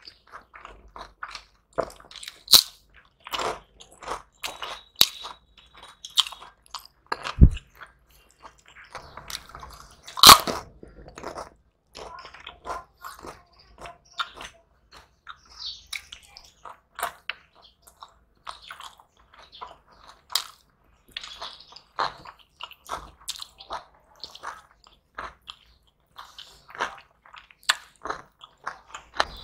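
Close-up eating sounds of people eating fried fish and rice by hand: irregular chewing, crunching and wet mouth clicks, with a few louder sharp crunches, the loudest about ten seconds in.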